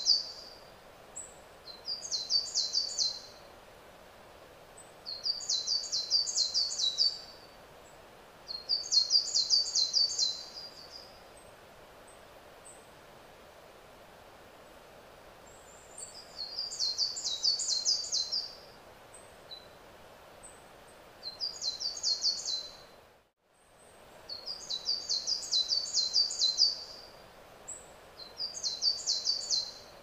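A songbird singing the same song over and over: bursts of one to two seconds of rapid, high, trilled notes, repeated every few seconds, over a faint steady hiss.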